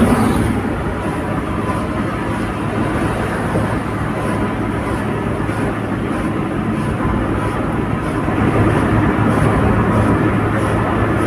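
Steady road and engine noise inside a car cruising on a highway: tyre rumble and a constant low hum, growing a little louder near the end.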